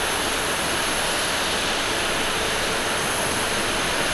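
Steady jet engine noise from an Airbus A350's Rolls-Royce Trent XWB turbofans as the airliner rolls along the runway, a continuous rush with a thin high whine on top.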